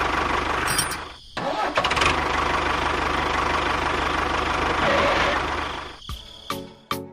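A small engine on a DIY mini bulldozer running steadily. It cuts out briefly about a second in, picks up again, and fades away near the end, where a few short plopping clicks follow.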